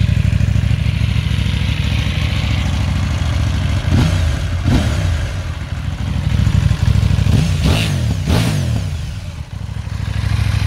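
KTM 790 Duke's parallel-twin engine idling through an Akrapovic slip-on silencer, revved briefly a few times around the middle, its pitch rising and falling each time before settling back to idle.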